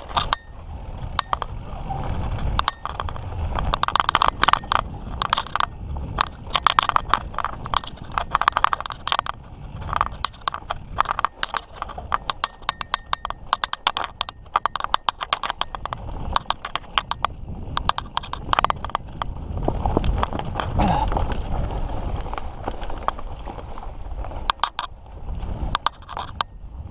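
Mountain bike ridden over rocky trail: dense, irregular rattles and clacks from the bike jolting over rocks, over a steady low rumble of tyres on dirt.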